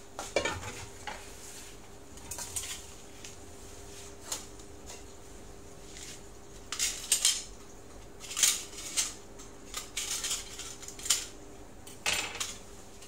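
Kitchen utensils clattering: a stainless-steel pot set down on the worktop and knives pulled from a metal utensil holder, in scattered short clinks and knocks.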